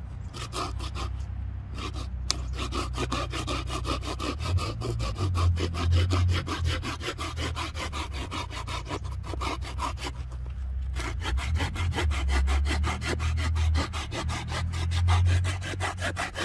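Bahco Laplander folding saw cutting through a branch about two inches thick, in rapid, even back-and-forth strokes; its teeth cut on both push and pull. The strokes pause briefly twice, once about a second and a half in and again around ten seconds in.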